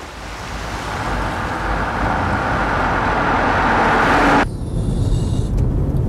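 A car driving toward the listener, its engine and tyre noise swelling steadily for about four seconds. The sound then cuts off abruptly and gives way to the steady low rumble of road noise heard from inside the car.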